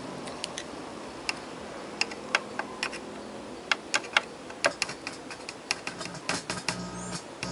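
Irregular sharp clicks and taps, a few a second, with a faint low hum that grows a little stronger near the end.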